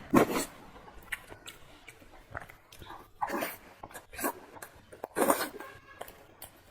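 Close-miked eating sounds of fatty pork with pickled cabbage: wet chewing and mouth smacks coming in irregular bursts.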